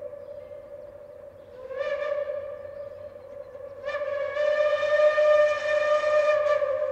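Steam whistle of Reading T-1 locomotive 2102 blowing as it approaches, a steady chord of tones that swells into a short blast about two seconds in and a longer, louder blast from about four seconds in.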